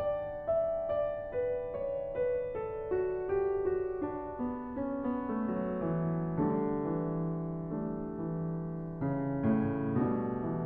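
Solo grand piano playing a classical piano prelude. Single notes step downward about two a second, then settle into lower, fuller held chords in the second half.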